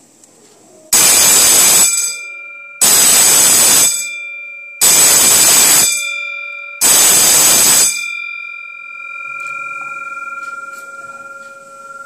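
Electric school bell with a metal gong, its striker hammering the gong in four one-second rings about a second apart: the timer's one-second-on, one-second-off period pattern, where four rings mark the fourth period's bell. The gong keeps ringing faintly after the last burst.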